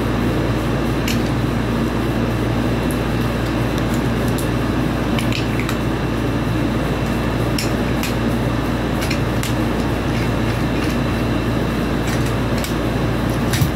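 Light scattered clicks and knocks of wooden toy train cars and track pieces being handled and set on the track, over a steady background hum and hiss that is the loudest thing throughout.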